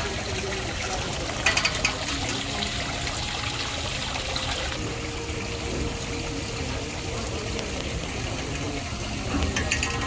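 Steady splashing of water spilling down the ledges of a stepped cascade fountain. A few sharp clicks sound about a second and a half in and again near the end.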